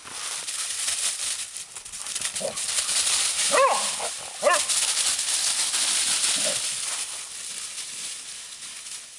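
Entlebucher Mountain Dogs play-fighting in dry fallen leaves: a steady rustle and scuffle of leaves underfoot, with four short playful barks, the two loudest about three and a half and four and a half seconds in.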